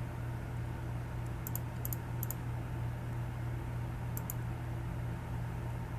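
Steady hum of the running Amiga 2000 computer, with four faint double clicks spread over the first few seconds, as from a mouse button while the web page is navigated.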